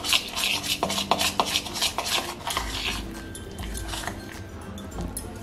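Steel spoon scraping and clacking against a steel bowl in quick repeated strokes as thick jowar-flour batter is stirred with water. The strokes thin out and grow quieter about two and a half seconds in.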